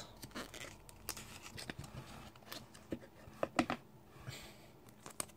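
Scattered light clicks, scrapes and rustles of a cardboard rip card being peeled open and the mini card inside being handled.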